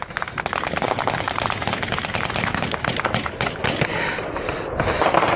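Gunfire from the ground at a helicopter: a dense, irregular crackle of cracks.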